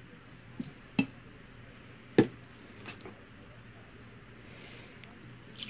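Kitchen containers being handled while barbecue sauce goes into a Crock-Pot: a few scattered knocks and clicks, the loudest a little over two seconds in.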